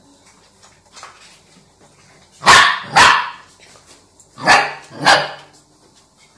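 Barbet puppy barking: four sharp barks in two pairs, the second pair about two seconds after the first.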